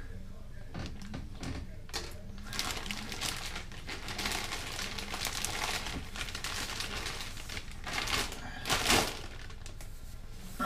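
Clear plastic bag crinkling and rustling as a tripod is slid out of it, with scattered light clicks; the loudest crinkle comes about nine seconds in.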